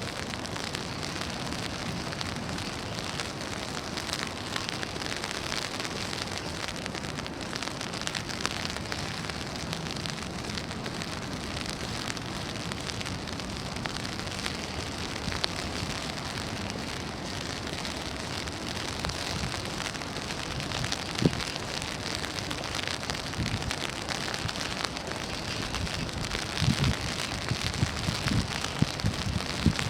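Rain falling on an umbrella: a steady hiss of rain with many small drop ticks, and a few heavier low thumps on the canopy about 21 seconds in and again near the end.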